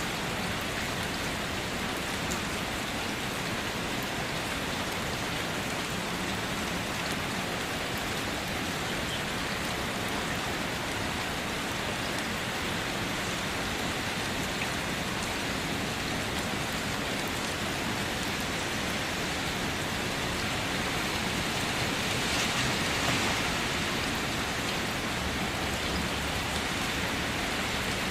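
Steady, heavy rainfall, a dense even hiss of drops hitting a surface, swelling a little about twenty-two seconds in.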